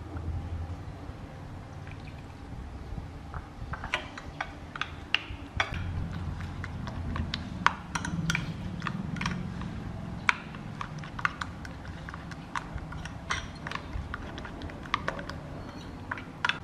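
Metal spoon stirring a chili sauce in a small glass bowl, clinking lightly and irregularly against the glass. The clinks start about four seconds in.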